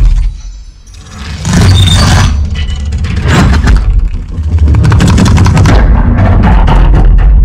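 Dolby Atmos demo trailer sound effects played loud through cinema speakers: a deep booming rumble with dense crackling hits. It drops away briefly about half a second in, then swells back up.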